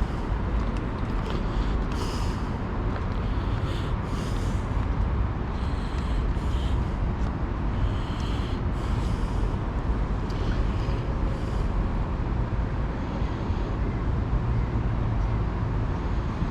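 Steady low outdoor rumble, like city traffic or wind on the microphone, with faint light ticks every second or so.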